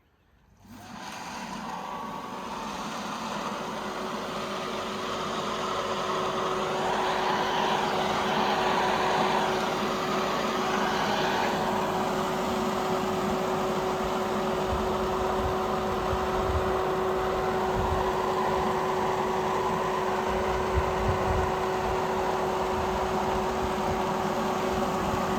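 Water pump starting up and running steadily after its line from the tank was filled to bleed the system: a steady hum that builds over the first few seconds and then holds.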